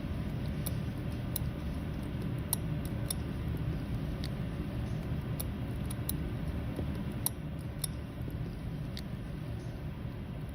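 Steady low background hum with a dozen or so faint, sharp little clicks scattered irregularly through it.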